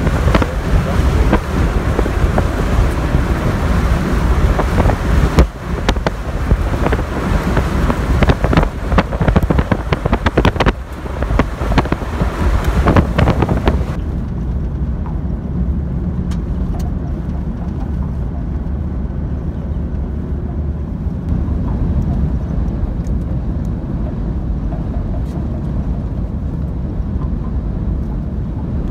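Vehicle driving through a dust storm, heard from inside the cab: loud road and wind noise, rough and gusty with sharp crackles for the first half. About halfway it settles into a steadier, quieter low rumble.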